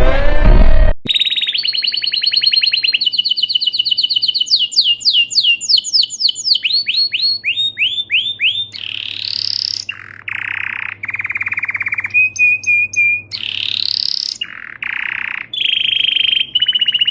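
A loud, different sound fills the first second. Then comes a long run of bird calls: rapid high repeated notes that break into quick downward-sweeping notes, followed by rising sweeps, harsher buzzy notes and short steady whistles.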